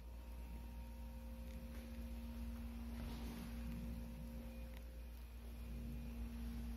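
A steady mechanical hum: one low, unchanging tone with fainter overtones above it, over a deep rumble.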